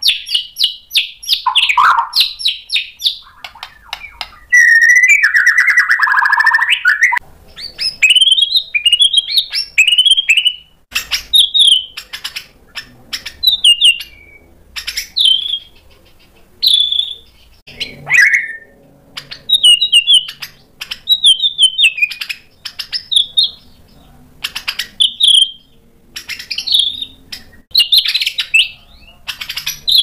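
Male white-rumped shama singing a loud, varied song. It opens with rapid chattering trills, has a long rich phrase about five seconds in, then gives short clear whistles and slurred notes about once a second.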